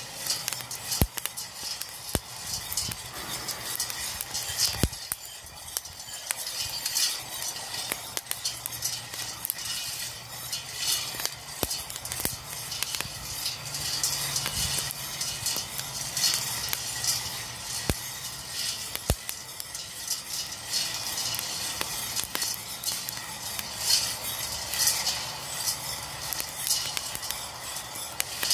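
A wire whisk stirring roasting coffee beans in a stainless steel pan, a continuous rattle and scrape of beans against the metal. A few sharp cracks stand out at scattered moments, as the dark-roasted beans are still cracking.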